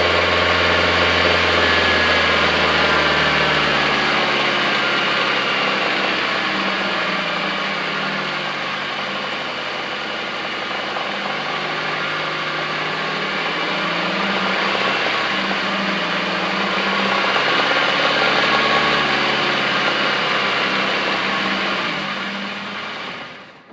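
2015 Nissan Micra's HR16DE 1.6-litre four-cylinder engine running steadily in park, its pitch and loudness wavering slowly, with the knocking that the owner likens to a jackhammer and suspects is a bad bearing. The sound drops away sharply near the end.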